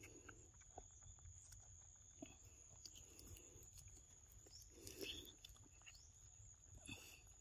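Faint wet sucking and smacking of young macaques drinking from a squeezed drink pouch, in soft bursts every second or two, with a steady high whine behind.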